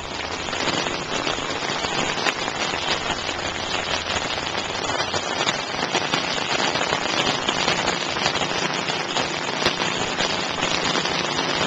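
Heavy rain pelting standing floodwater on pavement: a dense, steady hiss full of small ticks.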